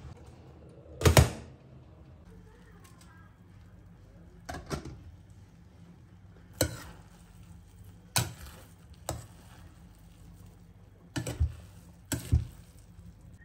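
Utensil stirring rice in a stainless steel pot, knocking sharply against the pot about ten times at uneven intervals, the loudest about a second in.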